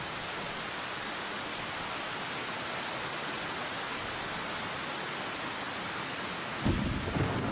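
Heavy tropical rain falling steadily, with a loud rumble of thunder breaking in suddenly near the end.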